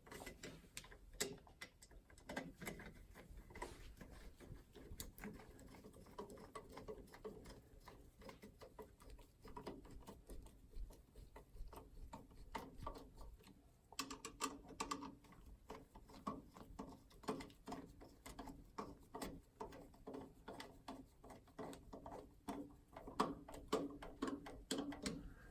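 Faint, irregular small clicks and scrapes of a screwdriver turning the mounting screws of an electrical receptacle into its metal box.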